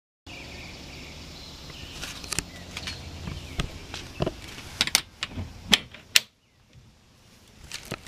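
Scattered knocks and clicks as the door of a boat's fiberglass center console is handled and opened, over a steady background noise. The sharpest clicks cluster about five to six seconds in, after which the background drops out and it goes much quieter.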